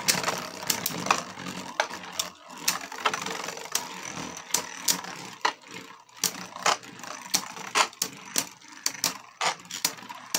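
Two Beyblade Speed Storm spinning tops, Kolossal Helios and Cursed Satomb, spinning in a red plastic Beyblade stadium: a steady whir with many irregular sharp clicks as the metal-faced tops knock together and skid on the plastic bowl.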